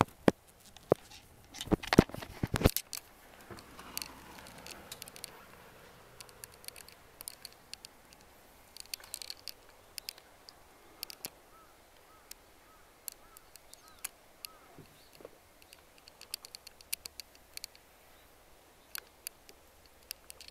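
Handling noise as a handheld camera is moved about a truck cab: sharp clicks and knocks, loud in the first few seconds, then faint scattered ticks. A few faint, evenly repeated high chirps come near the middle.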